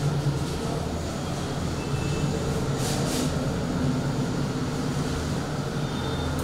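Steady low hum throughout, with brief swishes of a duster wiping a whiteboard, two of them close together about three seconds in.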